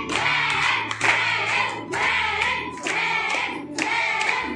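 Voices singing a song in repeated short phrases, with hands clapping along.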